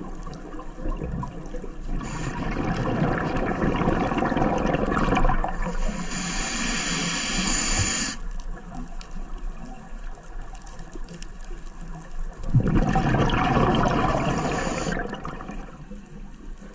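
Scuba diver breathing through a regulator underwater: rushing, gurgling bursts of exhaled bubbles and a high hiss on each breath, two breaths in all, the second about three quarters of the way through.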